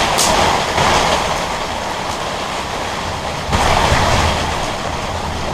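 Heavy rain falling: a steady, dense rushing noise that grows louder about three and a half seconds in.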